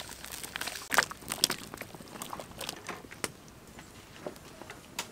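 Vegetable chunks being tipped from a plastic basket into a wok of curry, heard as a scatter of short clicks and crackles, the loudest about a second in.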